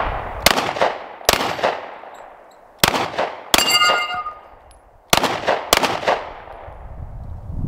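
About eight 9mm pistol shots from a Glock 19X with a G-Flex binary trigger, which fires once on the pull and once on the release, so the shots come mostly in close pairs. A hit on a steel plate rings clearly for under a second after the shot about three and a half seconds in.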